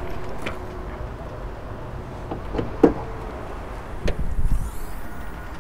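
Mercedes-Benz E-Class Cabriolet bonnet being opened: a few sharp clicks and knocks from the bonnet catch, the sharpest about three seconds in, then a short run of knocks as the bonnet is lifted.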